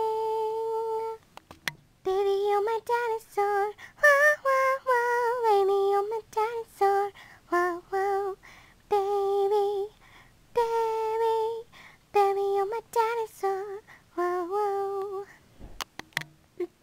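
A girl singing a song alone, without accompaniment, in short phrases separated by brief pauses.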